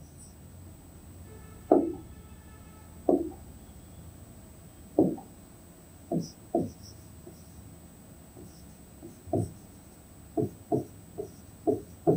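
Stylus knocking against the glass of an interactive display board during writing: a dozen or so short, dull taps, spaced a second or more apart at first, then coming quicker in the last couple of seconds as the letters go down.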